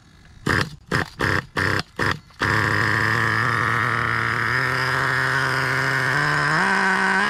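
Traxxas Revo 3.3's small two-stroke nitro engine turning over in five quick bursts, then catching about two and a half seconds in and running steadily. Its pitch steps up twice near the end.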